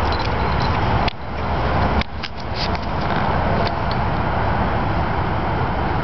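Steady loud rushing noise with scattered small clicks, dipping sharply twice, about one and two seconds in, then carrying on.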